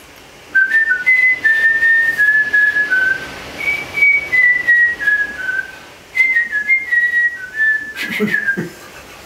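A man whistling a tune through pursed lips: three phrases, each stepping down from a higher note, with short breaks between them. A brief noise follows the last phrase near the end.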